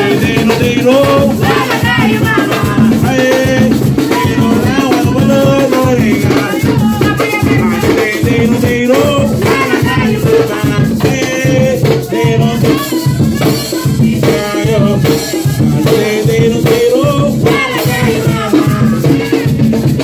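Live Garifuna band playing: hand drums and shakers keep a steady beat under a singing voice.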